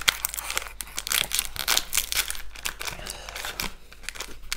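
Plastic wrapper of a Kinder Milk Slice crinkling and tearing as it is pulled open by hand, a dense irregular run of sharp crackles.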